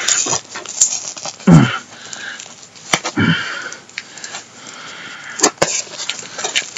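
Packaging rustling and crinkling as a mailed parcel is opened by hand, with scattered sharp clicks. Two short low vocal noises from the person come about a second and a half in and again just after three seconds.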